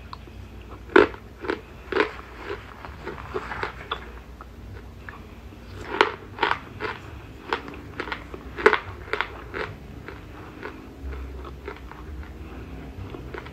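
Close-miked crunching and chewing of compressed cornstarch chunks: a few sharp crunches about a second in, a denser run of crunches from about six to ten seconds in, then softer chewing near the end.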